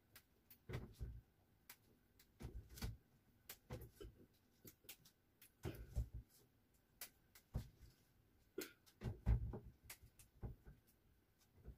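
Leafy greens being picked by hand: irregular soft snaps and taps as leaves are pulled off their stems and dropped into a bowl, with a few low knocks on the counter, the loudest about nine seconds in.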